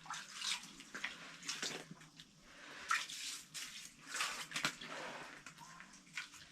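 Water sloshing and splashing in an ice-fishing hole as a large splake is dipped and swished through it to rinse it off, in several uneven splashes.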